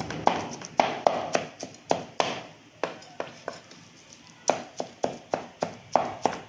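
Kitchen knife chopping raw chicken into mince on a wooden chopping board: a run of sharp knocks, about three a second, with a short gap a little past the middle.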